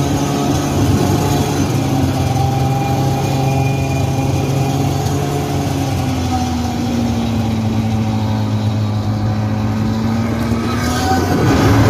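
Snowmobile engine running steadily as it rides over snow, its pitch drifting gently down and back up. It picks up and grows louder near the end.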